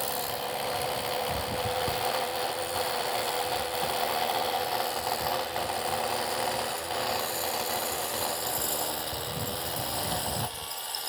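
Impact hammer drill boring a bolt hole into a concrete slab for a post bracket's anchor, running steadily at a loud rough chatter, then stopping near the end.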